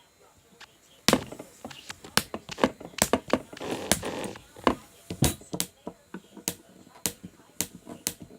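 Irregular sharp clicks and taps of small hard plastic toys being handled, about twenty knocks spread unevenly, with a short rustle around the middle.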